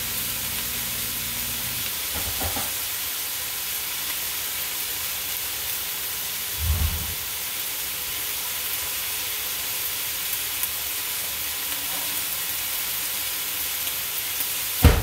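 Sliced silk squash and ground pork sizzling steadily in a stir-fry pan. A low hum stops about two seconds in, and dull knocks come at about seven seconds and, louder, near the end.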